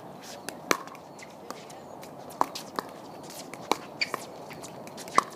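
Pickleball rally: sharp pops of paddles striking the hollow plastic ball, about eight hits spaced irregularly from a few tenths of a second to over a second apart, with quick exchanges near the end.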